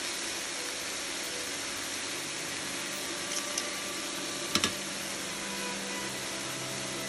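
Marinated meat slices sizzling on a hot ridged grill pan: a steady hiss, with a few sharp pops about halfway through.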